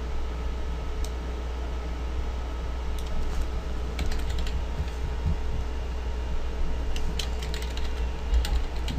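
Typing on a computer keyboard: keystrokes come in short bursts with pauses between them, over a steady low hum.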